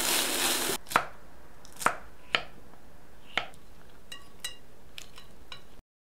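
Diced chicken breast sizzling in oil in a frying pan for under a second, then four sharp knocks. From about four seconds in come light ringing clinks of a utensil against a glass bowl as the salad is tossed, and the sound cuts off suddenly near the end.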